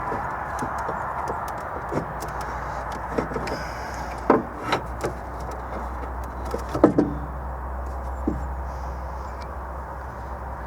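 A few short knocks and clunks from working on a car engine during a timing chain job, loudest about four and a half and seven seconds in, over a steady background hum.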